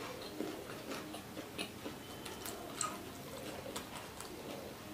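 Quiet, close-miked eating sounds: irregular small clicks and smacks as fish is chewed and picked at by hand from a steel plate.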